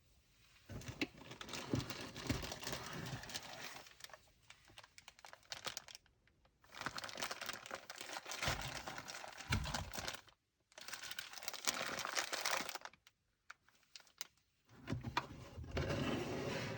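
Packaging of a boxed standing fan crinkling and rustling as it is handled and unwrapped, in several stretches broken by short complete silences.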